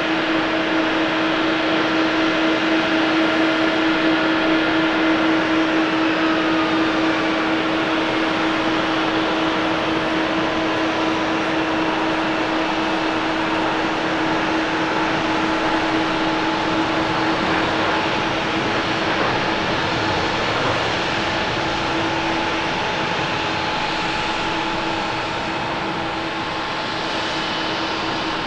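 Boeing 737-800 jet engines at takeoff power during the takeoff roll and lift-off: a steady jet roar with a held whine through it, and a whine that falls in pitch a few seconds in.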